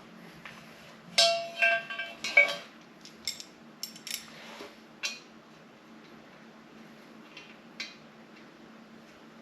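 Metal clinking and rattling as small steel studs and a wrench are handled: a cluster of ringing clinks about a second in, then a few lighter ticks and clicks spaced out over the next several seconds.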